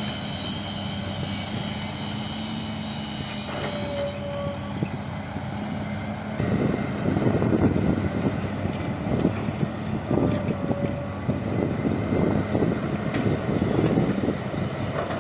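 Heavy diesel vehicle engine running, with a steady hum and a high whine at first. It turns louder and rougher about six seconds in.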